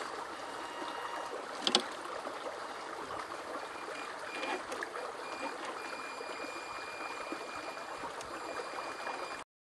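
Creek water running steadily, with one sharp click about two seconds in; the sound cuts off abruptly just before the end.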